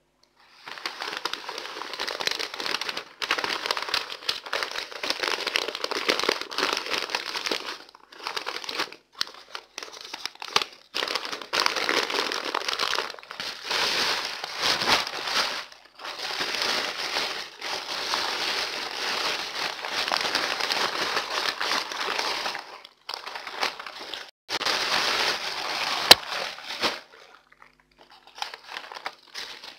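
Sheets of baking paper crinkling and rustling as bunches of fresh herbs are wrapped in them, in long spells broken by short pauses. A single sharp click near the end.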